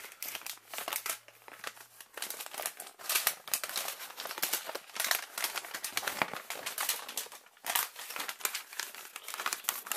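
Paper and cardboard packaging crinkling and rustling irregularly in the hands as a folded instruction leaflet is worked out of a battery box.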